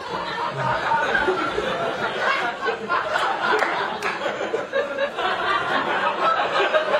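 Studio audience laughing, many people at once, with the laughter rising and falling.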